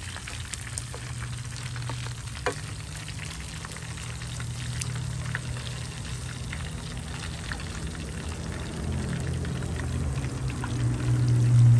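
Red snapper pieces frying in hot oil in a pan, a steady crackle of small pops, with one sharper click about two and a half seconds in. A low steady hum runs underneath and swells near the end.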